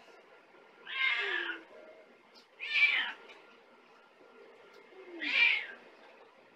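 Calico cat meowing three times, each meow under a second long and about two seconds apart. These are the meows of a cat asking for affection as she hugs a child.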